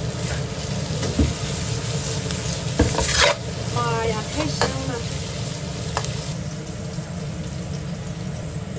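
Pork and chillies sizzling in a wok while a metal spatula stirs and scrapes, knocking against the pan a few times. Underneath is a steady hum and hiss from a running pressure cooker. The sizzle drops away after about six seconds.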